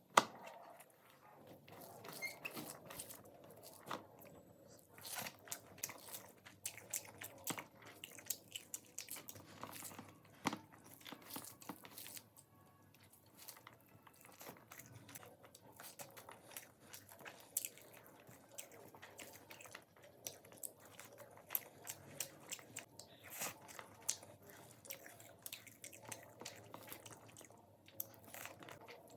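Close-miked eating: a person biting and chewing crunchy food, with many sharp crunches at irregular intervals.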